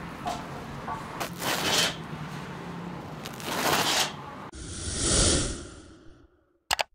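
Crisp barbari bread crust crackling as loaves are handled and one is broken in two by hand, in two rustling surges. Then a rushing sound effect starts suddenly, swells and fades, followed by two quick clicks near the end.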